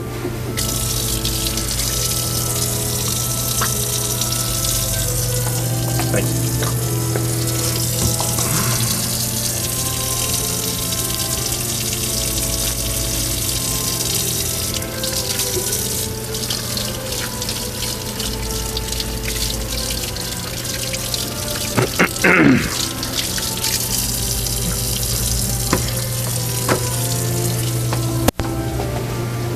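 Church organ playing a hymn in sustained chords, over a steady hiss. There is a short squeaky glide about three-quarters of the way through.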